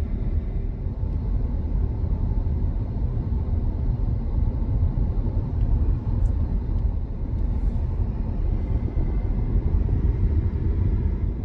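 Steady low tyre and road rumble inside the cabin of a Tesla Model Y electric car descending a mountain road at about 40 mph on regenerative braking, with no engine sound.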